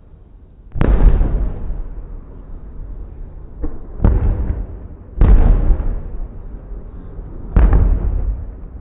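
Aerial fireworks shells bursting: four loud booms and one smaller one, each trailing off in a long rolling rumble.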